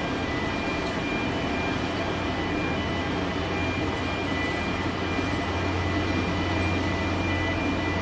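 Heavy diesel machinery running steadily during coal unloading: a continuous deep hum that grows a little stronger about halfway through, with a few faint steady high whines above it.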